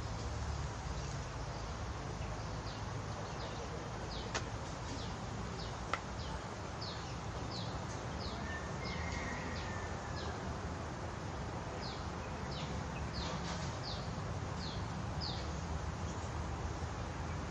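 A bird calling: a series of short, high chirps, each falling in pitch, about two a second, with a pause midway through, over a steady low outdoor rumble. Two light clicks come in the first few seconds.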